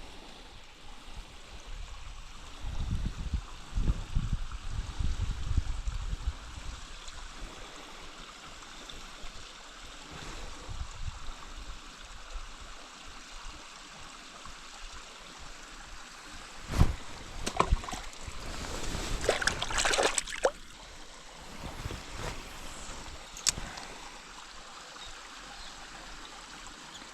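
A mountain stream runs and trickles steadily. There are low rumbles a few seconds in, and a few sharp knocks and rustles about two-thirds of the way through.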